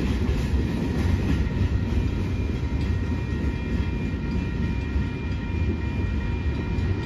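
Union Pacific train's open hopper cars rolling past on the rails: a steady low rumble with a few faint, steady high tones above it.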